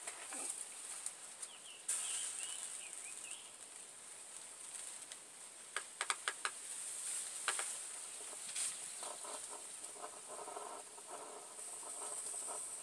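Homebrew aluminium bottle alcohol stove burning under a mess kit pot of water, a steady high hiss, with a quick run of sharp ticks about six seconds in.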